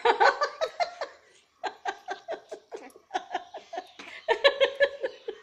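Giggling laughter: a long run of quick, high-pitched laughs, about four or five a second, with a short break about a second in.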